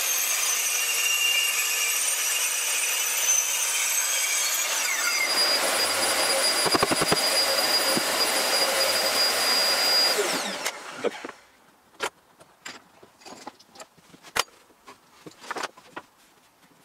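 Black & Decker KS40 circular saw cutting through a chipboard sheet, running steadily at full speed for about ten seconds, then switched off and winding down with a falling whine. A few light knocks and clicks follow as the saw and guide rail are handled.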